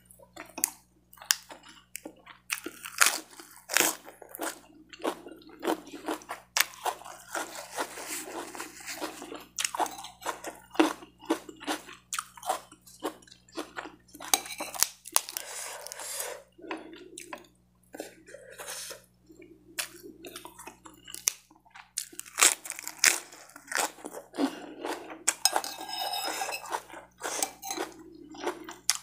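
A person chewing and crunching mouthfuls of raw lettuce leaves and fried rice, close to the microphone, with many sharp, irregular crunches.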